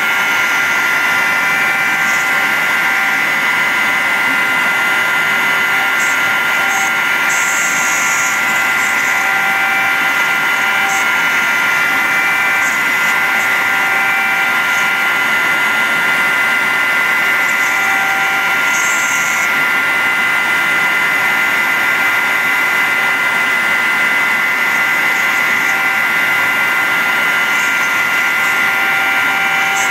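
CNC router spindle running at a steady high whine while its bit cuts into the sheet, with short bursts of hiss every few seconds.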